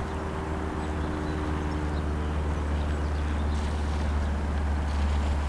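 Cessna 152 light aircraft flying overhead: its four-cylinder Lycoming piston engine and propeller make a steady drone whose pitch sags slightly as the plane passes.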